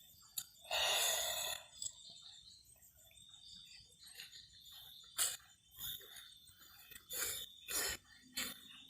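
A person coughing: one long, hoarse cough about a second in, then a run of shorter coughs in the second half.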